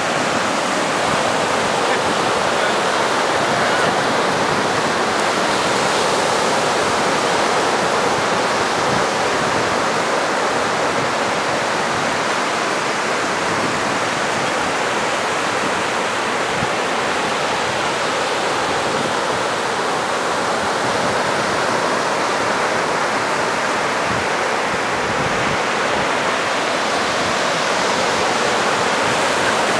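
Sea noise: a steady, even rushing hiss with no distinct waves breaking.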